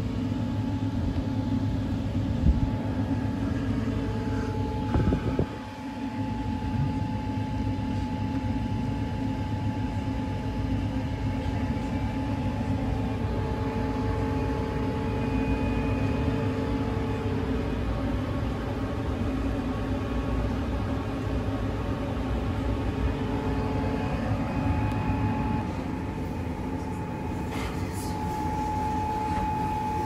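El 18 electric locomotive standing at a platform, giving off a steady hum with a few held tones over it and a couple of faint knocks.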